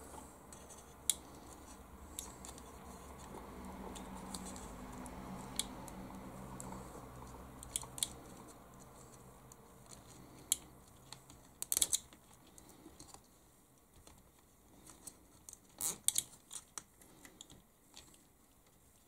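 Small nylon cable tie being threaded and pulled tight around a bundle of thin wires: quiet handling with scattered sharp clicks, coming in quick little runs near the middle and toward the end as the tie ratchets closed.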